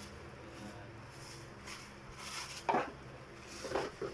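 Plastic wrapping crinkling and a cardboard box being handled while an electric kettle and its cord are unpacked, in several short rustling bursts, the loudest a little under three seconds in, over a faint steady hum.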